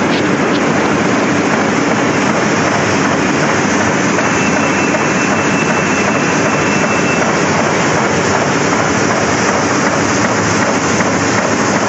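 Heidelberg Speedmaster XL 105 six-colour sheetfed offset press running, a loud, steady mechanical noise with no rhythm or change. A faint high whine sits on top for a few seconds in the middle.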